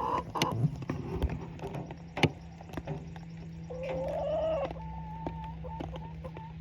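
A hen calling, one drawn-out call a little past halfway, among scattered clicks and taps, over a steady low hum.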